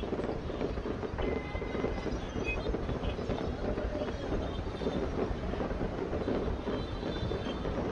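Continuous low rumble of distant fireworks going off, under a murmur of crowd voices, with wind buffeting the microphone.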